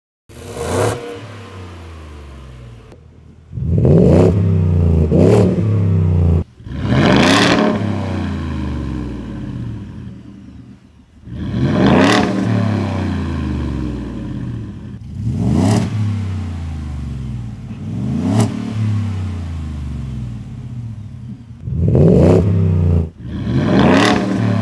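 Ford F-150 engine revved at standstill through aftermarket exhausts, in about nine short blips, each a quick rise and fall in pitch. The second half is the truck with the Borla exhaust.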